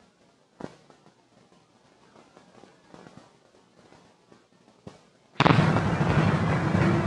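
Faint hiss and crackle of an old optical film soundtrack with a few sharp pops, then about five seconds in, the film's opening music starts suddenly and loudly.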